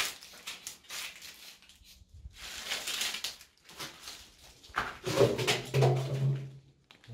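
Footsteps scuffing and crunching over a gritty, debris-strewn floor, with rustling, in a small bare room. About five seconds in, a low drawn-out voice-like hum is heard for a second or two.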